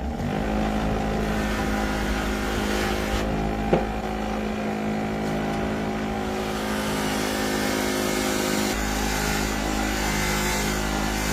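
A power tool's electric motor starts up and runs steadily at constant speed, with one short click about four seconds in.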